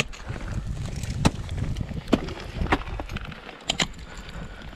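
Ice axe picks striking into waterfall ice: about six sharp, separate impacts, the last two in quick succession.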